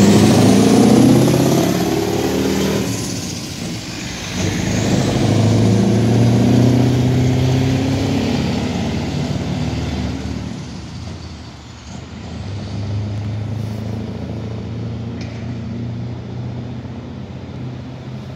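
Scania V8 truck engine with open (straight-pipe) exhaust stacks pulling away: a loud exhaust note that drops about three to four seconds in, climbs again as it accelerates, then settles into a lower, fainter steady drone in the second half as the truck gets farther away.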